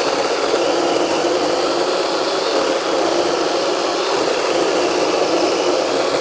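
DeWalt 20V MAX XR 12-inch cordless chainsaw running steadily under load, its chain cutting through hard black locust wood.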